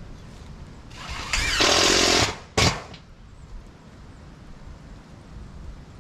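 Power drill running for about a second and a half, then a brief second burst.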